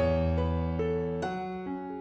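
Background piano music, with a new note struck about every half second.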